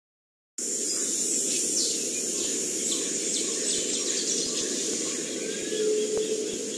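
Forest ambience: a steady insect drone with short bird chirps scattered through it, after a half-second gap of silence at the start.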